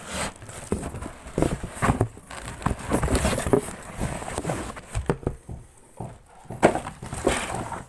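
Cardboard being handled: a product box is pulled out of a corrugated shipping carton, with irregular scraping, rubbing and knocking of cardboard on cardboard.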